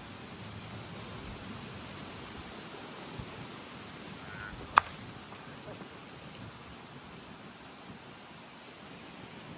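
Wind buffeting the microphone in a steady rush, with a single sharp crack just under five seconds in: a slowpitch softball bat hitting the ball, ringing briefly.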